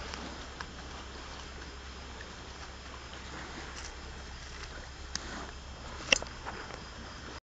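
Steady wash of surf on a sandy beach, with a low steady hum and a few sharp clicks, the loudest about six seconds in; the sound cuts off just before the end.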